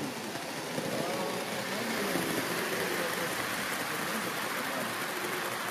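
Model train running on the layout's track: a steady rolling hiss from the wheels and motor that grows louder about two seconds in as the coaches pass close by.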